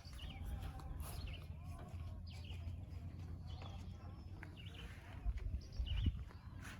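Faint, scattered bird chirps over a steady low rumble, with two soft low thumps about five and six seconds in.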